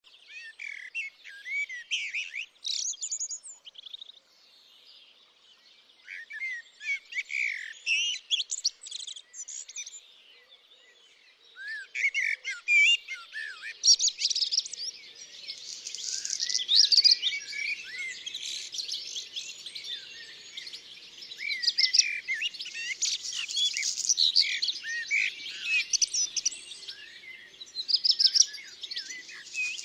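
Small songbirds singing: two short bouts of rapid chirps and trills with pauses between them, then from about twelve seconds in a dense run of overlapping calls and song phrases.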